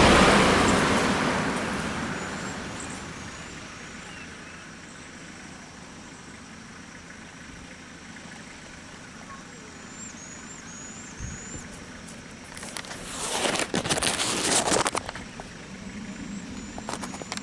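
A Toyota van drives past close by, its engine and tyre noise fading away over the first few seconds. After that a bird gives short rising chirps in little runs, and a loud noisy burst lasts about two seconds near the end.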